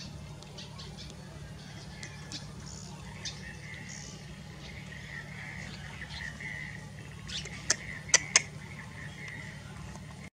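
Birds chirping against a steady low hum, with three sharp clicks close together about three-quarters of the way in.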